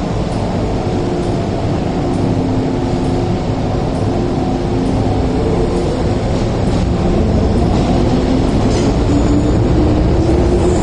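MTR Kwun Tong Line electric train pulling out of the station: motors humming over a low rumble of the wheels, the hum rising in pitch and growing louder in the last few seconds as the train gathers speed.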